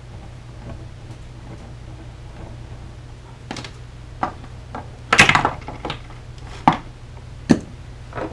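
Scattered clicks and knocks of hand tools handled on a workbench: a soldering iron set down and end-nipper fret pullers picked up, with a louder short clatter about five seconds in. A steady low hum runs underneath.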